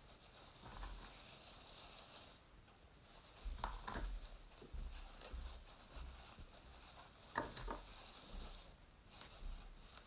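Faint rubbing and handling of a felted-wool bunny with gloved hands: a soft hiss of friction, with a few light clicks and knocks about four and seven and a half seconds in.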